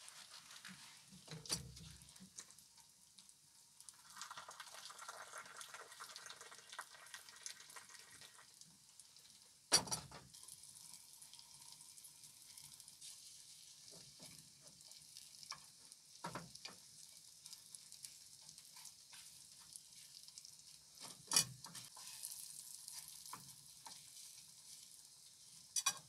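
Sausage slices sizzling in oil in an aluminium mess tin on a wood stove, a faint steady hiss. A few sharp knocks and scrapes of a spoon against the pan break it, the loudest about a third and three-quarters of the way through.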